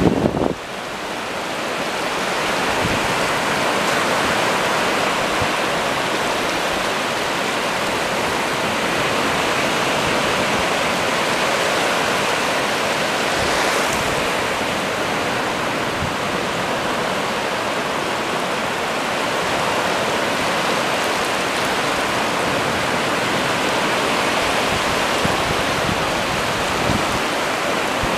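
Gulf of Mexico surf washing in over shallow sand: a steady rush of small breaking waves and foam, swelling over the first couple of seconds and then holding even.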